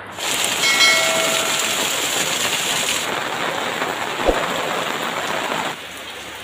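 Heavy rain pouring down and splashing on paved ground and a flat concrete roof: a dense, even hiss. A short ringing tone sounds about a second in, and a brief thump a little past four seconds in; near the end the rain drops noticeably quieter.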